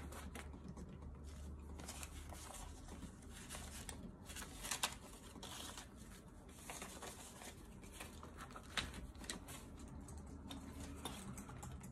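Faint rustling and flicking of paper banknotes as a stack of bills is counted by hand and slipped into a binder's plastic zip pocket.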